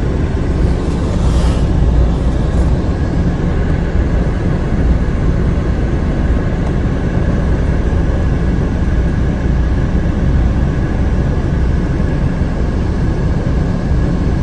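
Loud, steady low rumble of vehicle and street noise on a phone recording, with no clear voices standing out.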